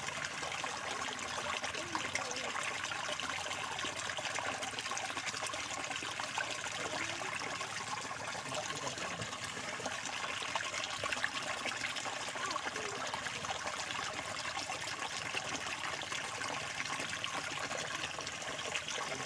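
Water trickling steadily, an even watery hiss with no breaks.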